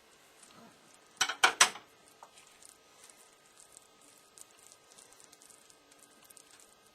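Spoon knocked against a bowl three times in quick succession, about a second in, then faint small clicks and scrapes of spooning.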